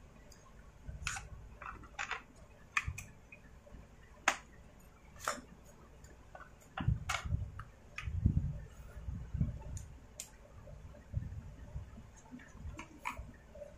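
Plastic parts of a Stihl MS250 chainsaw being handled and fitted by hand as the air filter goes on over the carburettor: irregular sharp clicks and taps, the loudest about four seconds in, with a cluster of dull low knocks through the middle.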